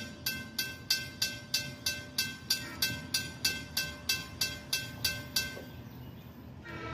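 A WCH mechanical railroad crossing bell ringing at about three strokes a second, then stopping about five and a half seconds in as the gates finish lowering. Near the end, the approaching diesel train's horn starts to sound.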